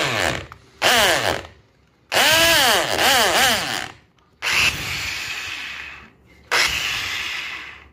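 Restored AEG electric drill running in five short bursts as its trigger is squeezed and released, the motor's whine rising and falling in pitch, while the bit bores into a wooden board. The third burst is the longest.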